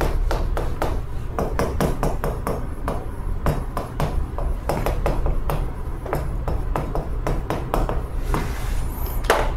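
Chalk writing on a chalkboard: a quick, uneven run of sharp taps and short scrapes as a line of handwriting goes up, over a low steady hum.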